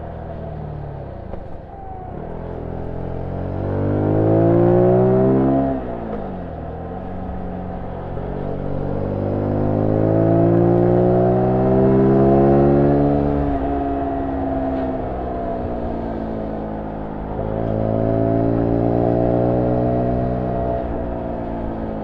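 Zontes U1 125's single-cylinder 125 cc engine through its stock exhaust, heard from the rider's seat while riding. The revs climb, fall away and climb again as the bike accelerates and eases off, with a sharp drop in pitch about six seconds in and a sudden jump up about three quarters of the way through.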